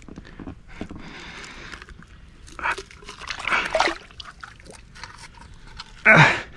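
Water splashing and sloshing as a wels catfish thrashes at the surface while held by its lower jaw, with a short, louder burst near the end.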